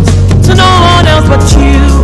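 Loud upbeat Pidgin-language gospel song playing, with a heavy bass line, drum beats and a melody line.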